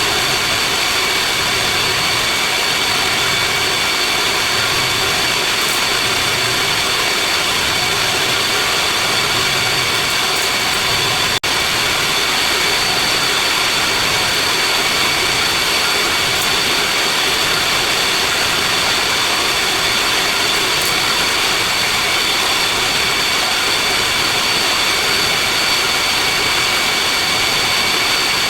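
Steady, loud machinery noise of running commercial chiller equipment, with several high, steady whining tones over a dense hiss. It drops out for an instant about eleven seconds in.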